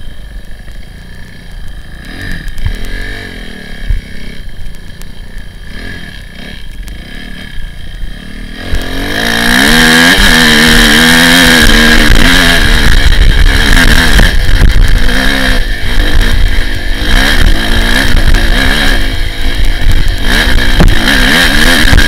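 Kawasaki KX250F dirt bike's single-cylinder four-stroke engine, heard from the rider's helmet. It runs at low revs for the first eight or nine seconds, then is suddenly opened up hard, revving up and down under load with a loud rushing noise over the engine.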